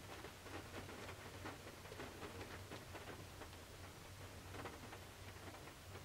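Raindrops pattering on the roof and glass of a Toyota 4Runner, heard from inside the cargo area as a faint, irregular run of soft ticks.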